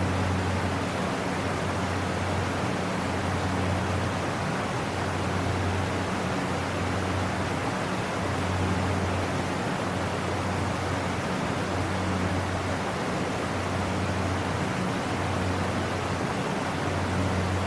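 Steady rush of a creek waterfall, an even, unbroken roar of falling water.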